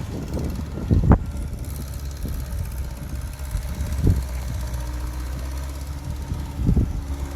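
Heavy diesel engine of an earthmoving machine running steadily at a low rumble, with a few dull knocks: about a second in, about four seconds in, and near the end.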